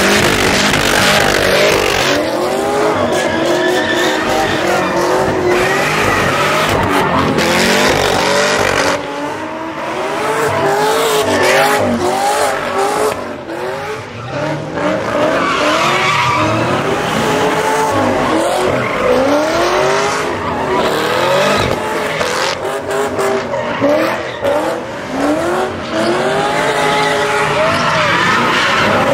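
A Cadillac sedan doing donuts and burnouts, its tires squealing continuously while the engine revs rise and fall over and over, about once a second.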